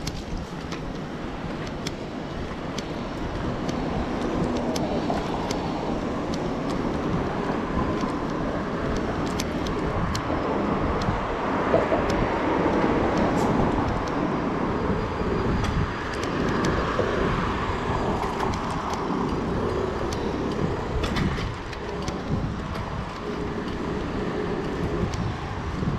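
Street traffic noise heard from a moving bicycle: passing cars and electric scooters, with wind rumbling unevenly on the microphone.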